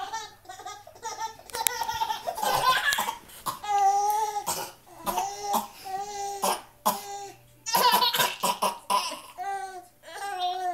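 A person gives repeated fake coughs, each answered by a young child's high-pitched bursts of laughter.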